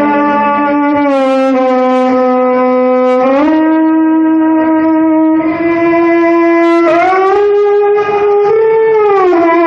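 A wind instrument playing long held notes, sliding smoothly from one pitch to the next.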